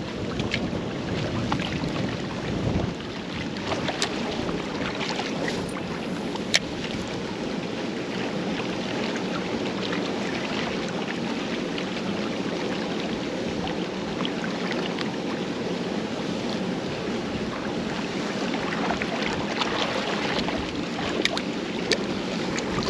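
Strong wind buffeting the microphone over choppy lake water lapping against a rocky bank, a steady rushing noise with a few sharp light clicks scattered through it.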